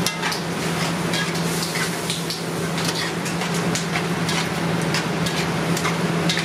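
Metal tongs stirring a large aluminium pot of stew, chunks of meat and vegetables sloshing in the stock as it bubbles, with scattered clicks and scrapes of the tongs against the pot. A steady low hum runs underneath.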